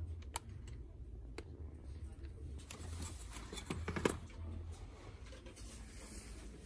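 Light clicks and knocks of a hard plastic blister pack of piping tips and a metal muffin tin being handled, over a low steady hum; the loudest knocks come about three to four seconds in.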